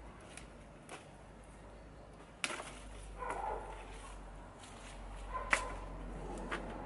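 Sharp snaps and clicks from cutting back and handling a potted water pepper plant over a plastic tray: two loud snaps about two and a half and five and a half seconds in, with smaller clicks between.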